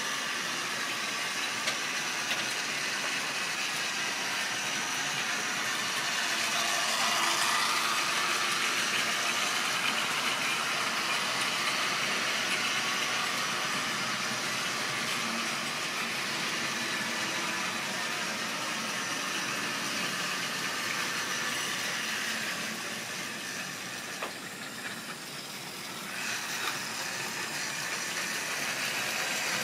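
Model railway train running on sectional track: wagon wheels rumbling and clicking over the rail joints, with the locomotive's small electric motor whirring. It grows louder as the train passes close, a few seconds in, and eases off later before picking up again near the end.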